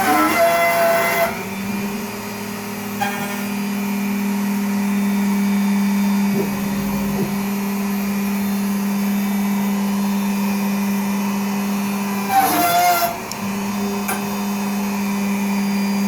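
CNC router's spindle running steadily at about 10,000 RPM while a 4-flute end mill rough-cuts a 3D model, a constant hum with a steady whine. A higher, wavering whine joins in briefly near the start and again about twelve seconds in.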